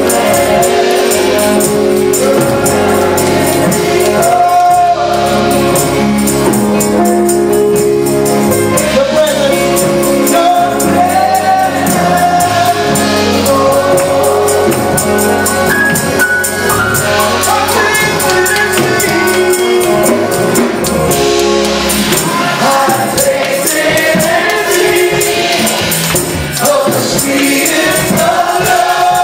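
Live gospel worship music: a man leads the singing into a microphone and a group of voices sings along, backed by a drum kit and a steady high jingling beat.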